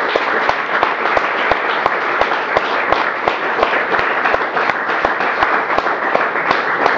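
Audience applauding: many hands clapping densely at a steady level.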